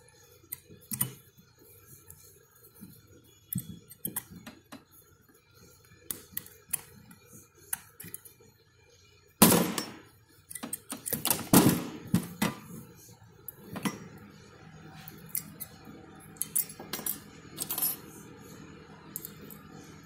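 Brake pads and a cast caliper mount bracket handled on a rag-covered tool chest: scattered metal clicks and clinks, with a louder run of clattering about halfway through.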